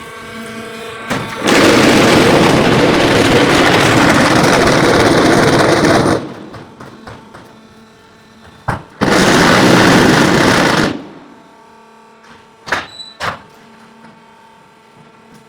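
Concrete block making machine running through its cycle: two loud noisy spells, the first about four and a half seconds long and the second about two seconds, with a steady motor hum and a few sharp knocks between them.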